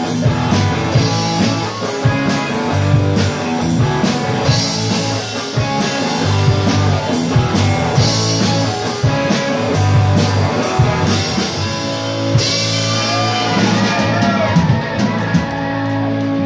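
Live rock band playing loudly: electric guitar, electric bass and a drum kit keeping a steady beat. About two seconds before the end the cymbal wash drops out while the guitars keep playing.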